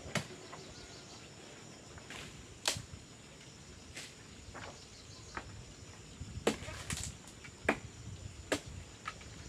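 Small twigs and leafy branches being snapped off a tree by hand: about seven sharp, scattered cracks, two of them louder than the rest.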